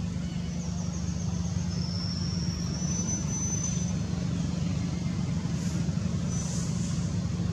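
Steady low motor-like rumble, with a few faint, short, high thin tones over it.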